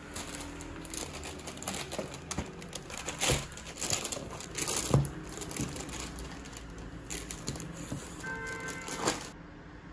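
Plastic carrier bag and cardboard burger boxes rustling, crinkling and knocking as takeout is unpacked and set down by hand.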